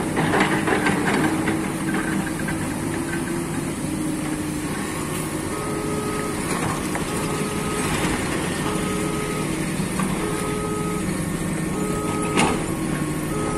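Komatsu PC200 hydraulic excavator's diesel engine running steadily under work. From about five seconds in, a repeating electronic beep alternates a low and a high tone at an even pace.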